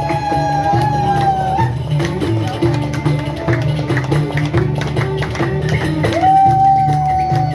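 Live Ottoman-style ensemble music: a long, gliding melody line held over a running beat of hand drum and tambourine and a steady low drone. The melody drops out about a second and a half in and comes back with a long held note about six seconds in.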